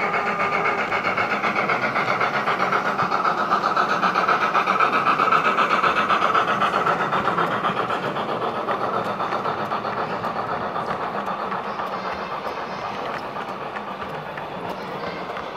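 Gauge 1 model of a DB class 80 steam tank locomotive and its coaches running past at full speed, a rapid rhythmic rolling clatter that is loudest about five seconds in and then fades as the train moves away.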